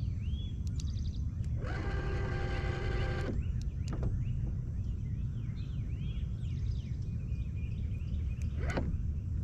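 Steady low rumble, with small birds chirping throughout. A buzzing tone sounds for about a second and a half near the start, and a few light clicks are heard.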